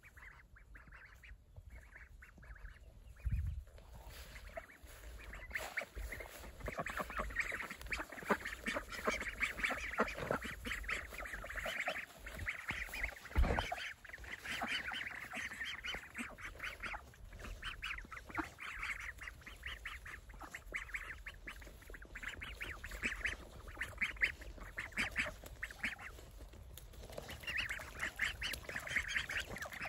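A flock of young domestic ducks, Saxony among them, quacking in quick, overlapping calls that thicken a few seconds in. Two low thumps stand out, one about three seconds in and one near the middle.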